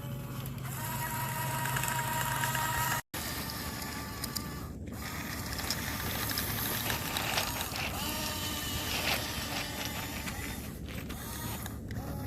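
Small electric gear motors of a Huina RC excavator whining in short runs, the pitch rising and falling as they start and stop, with a brief cut-out about three seconds in.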